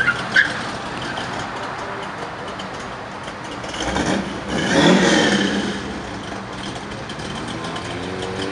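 Classic car engines running as cars leave a show. One car passes close and loud about four to five and a half seconds in, and near the end an engine's note starts to rise as it pulls away.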